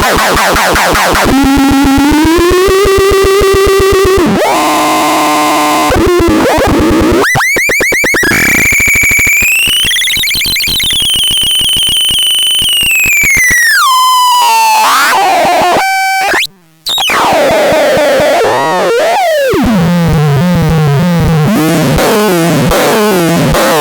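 HUDARLENAX electronic synthesizer producing buzzy tones that glide and sweep up and down in pitch, cutting out for a moment about sixteen seconds in.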